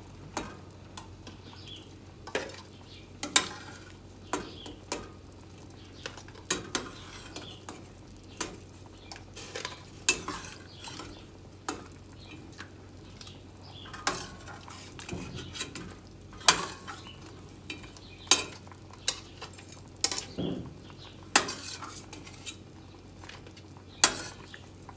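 A metal spoon clinking and scraping against a stainless steel saucepan while shrimp are scooped out of hot water, in irregular sharp clinks about once a second, with small splashes of water between.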